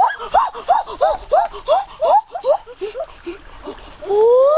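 A child's high voice hooting in a quick run of short calls, three or four a second, each rising and falling in pitch, that fades out. About four seconds in, it lets out one long loud 'oooh' that climbs in pitch.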